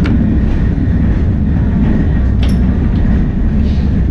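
Heritage electric tram running along street track, heard from inside the driver's cab: a steady low rumble, with two sharp clicks, one at the start and one about two and a half seconds in.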